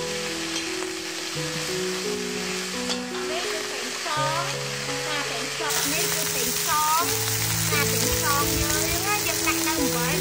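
Pumpkin shoots and flowers sizzling as they are stir-fried in a hot wok, with a metal spatula stirring and scraping through them. Background music with slow, held low notes plays over it.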